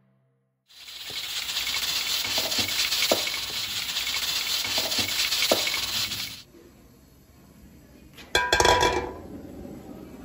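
Mutton karahi sizzling hard in a wok, with a spatula knocking against the pan a few times; the sizzle cuts off about six seconds in. Near the end comes one short, loud clatter.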